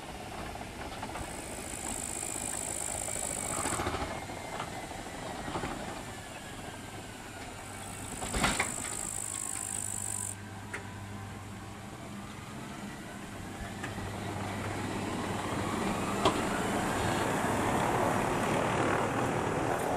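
Electric rack train of the Tramway du Mont Blanc running past on its metre-gauge track. A motor whine slides down and then back up in pitch, over the rolling noise, with two spells of high hiss and a sharp clack about eight and a half seconds in.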